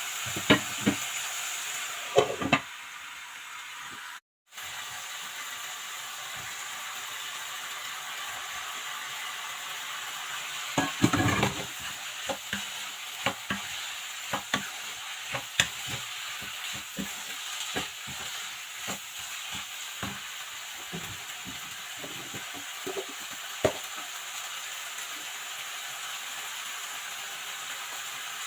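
Food sizzling as it fries in a pan, with a spoon stirring and scraping against the pan in irregular clicks and knocks.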